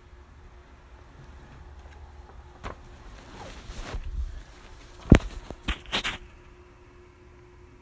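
Handling noise as the recording camera is moved about: rustling and a few knocks, with one sharp click about five seconds in, then two smaller clicks and a short scrape.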